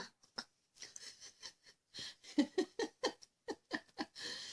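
A toddler giggling in a run of short breathy bursts, with a longer breathy sound near the end.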